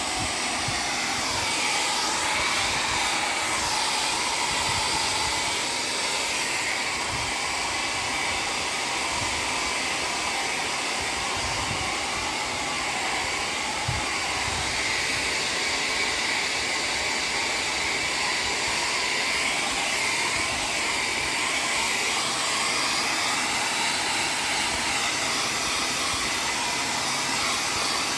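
Electric hair dryer blowing steadily, a continuous rushing whir whose tone shifts slightly now and then.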